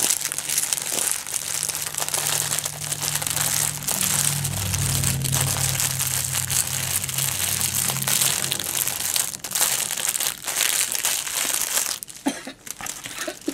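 Clear plastic bags crinkling as a bag of diamond painting drill packets is pushed and squeezed back into its plastic packaging, an irregular run of crackles with short pauses.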